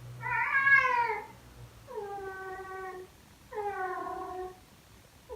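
Female British Shorthair cat in heat yowling: three drawn-out calls of about a second each, with short pauses between them.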